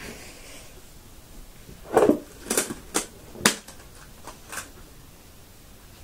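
A quick run of about six light clicks and clacks from hands handling small objects on a table, the loudest about two and three and a half seconds in.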